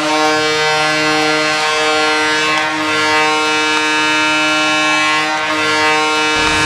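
Ice hockey goal horn blowing one long, steady blast. Rock music cuts in near the end.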